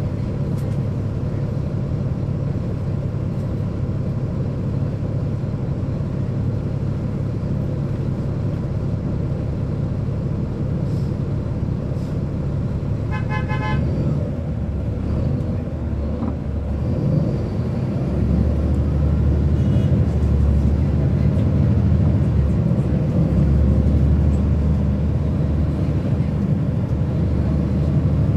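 Caterpillar C13 ACERT diesel and ZF Ecomat automatic of a 2009 NABI 40-SFW transit bus heard from on board, running steadily. About halfway through comes a brief beeping tone, and in the last third the engine grows louder and deeper as it pulls under load.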